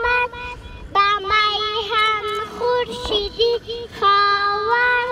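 A young girl singing a song into a hand microphone: long held notes with short ornamented turns, pausing briefly under a second in before going on.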